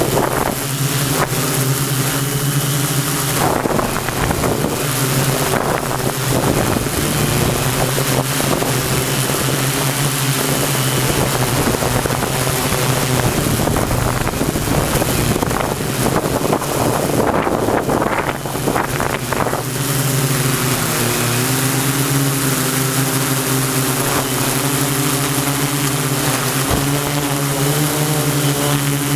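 Multirotor drone's electric motors and propellers running close to the microphone: a steady buzzing hum whose pitch wavers as the motors adjust speed, mixed with wind noise on the microphone.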